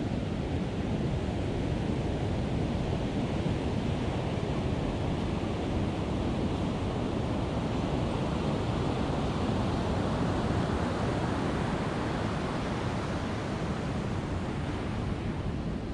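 Ocean surf breaking and washing up a sandy beach: a steady rushing noise that swells a little around the middle.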